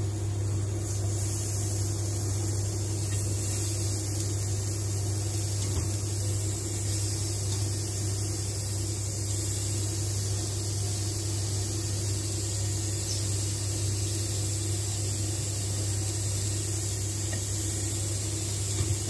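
Induction cooktop running under a frying pan: a steady low electrical hum with a constant fan-like hiss over it.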